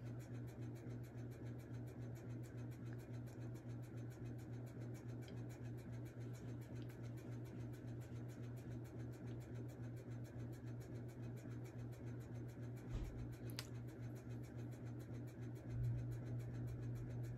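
Steady low electrical hum under a faint, even scratchy noise, with a soft bump and a click about 13 seconds in and louder handling noise near the end.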